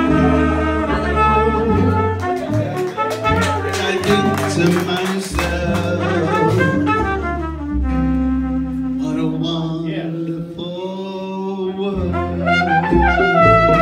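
Small live acoustic band playing an instrumental passage: a trumpet carries the melody over strummed guitar and mandolin and a plucked upright bass, with a long held note about two-thirds of the way through.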